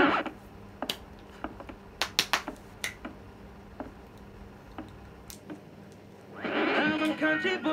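Scattered light clicks and taps of makeup items being handled, over a faint steady hum. Background music stops at the start and comes back with singing about six and a half seconds in.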